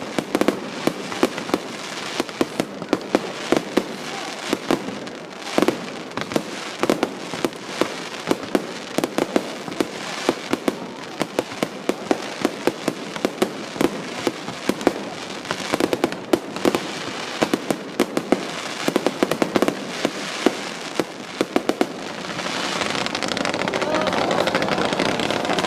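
Fireworks display: a rapid barrage of aerial shell bursts, several bangs a second. Near the end a steady hissing wash of sound swells up.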